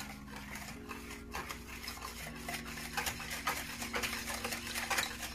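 Wire whisk stirring runny banana-bread batter in a mixing bowl, the wires clicking and scraping against the bowl in quick irregular strokes. The stirring gets busier from about halfway through.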